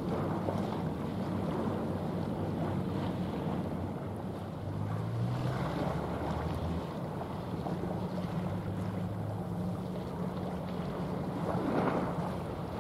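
Low steady drone of a passing general cargo ship's engine, under wind on the microphone and the rush of water. The drone shifts in pitch for a couple of seconds about halfway through, and a louder rush of wind or water comes near the end.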